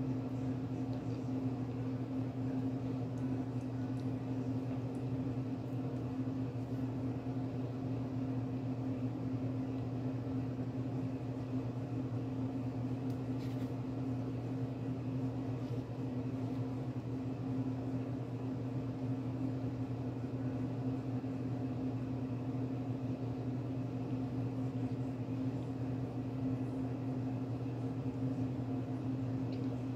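Steady low machine hum, unchanging throughout, like a household appliance or fan running.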